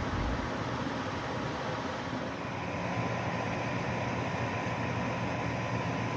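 Harbor Breeze Geneva ceiling fan, with its 188x15mm motor, running: a steady rush of air from the blades over a low motor hum.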